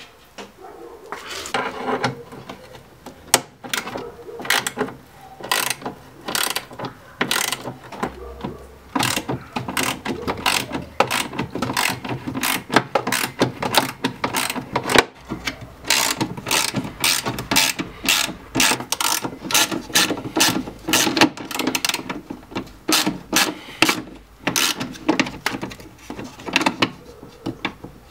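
Ratchet wrench clicking in quick uneven runs as the bolts of a BMW E39 front window regulator are turned, with knocks of metal parts inside the door.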